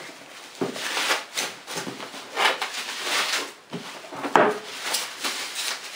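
Plastic bubble wrap rustling and crinkling in uneven bursts as it is pulled off a cardboard box, with one sharper crackle a little after four seconds in.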